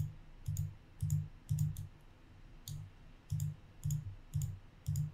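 Computer mouse button clicking about ten times at uneven intervals. Each click is a quick double tick with a dull knock under it.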